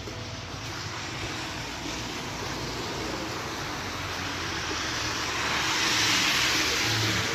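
Broad rushing roar from the sky that swells steadily louder and is loudest about six seconds in: an aircraft passing overhead.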